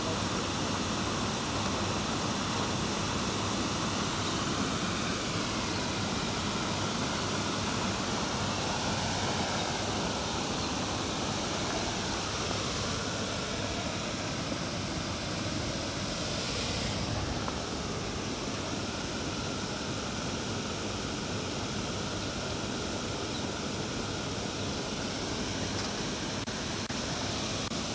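Steady rushing outdoor noise, even and unbroken, with no distinct event standing out.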